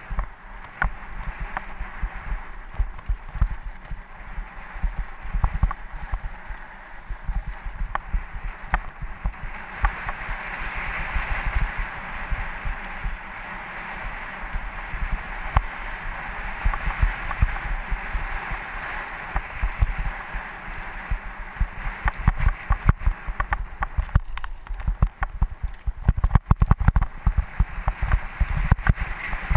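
Mountain bike rolling over a rocky dirt trail: a steady rush of tyre and wind noise with constant low bumps and jolts. The jolts turn into sharper clattering knocks near the end.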